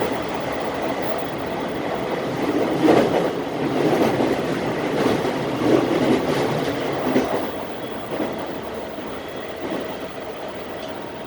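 E217-series electric commuter train running, wheels rumbling on the rails, with a run of clicks from wheels passing over rail joints in the middle. The sound eases off somewhat near the end.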